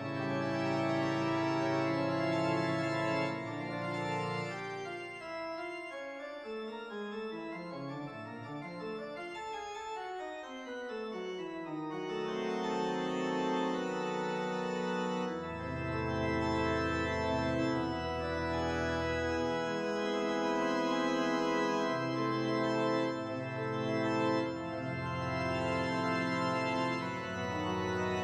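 Organ music accompanying the silent film: long held chords, with a run of notes stepping down from high to low over several seconds a few seconds in, then sustained chords over bass notes that change every couple of seconds.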